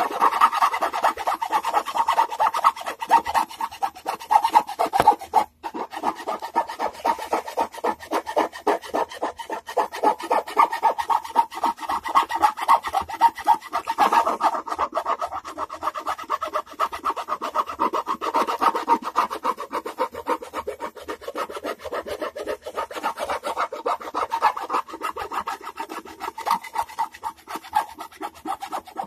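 A hand tool rasping at the wooden edge of a Stratocaster-copy guitar body, rounding off its squared edge in quick, continuous back-and-forth strokes. There is a brief pause about five and a half seconds in.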